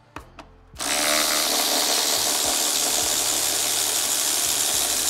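Cordless power ratchet running steadily, backing out a 10 mm bolt at the battery. It starts about a second in.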